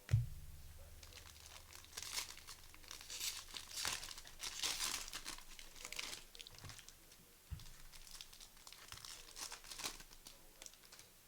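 Trading-card packs being torn open by hand, the wrappers crinkling and tearing, with a thump on the table at the start and another about 7.5 seconds in.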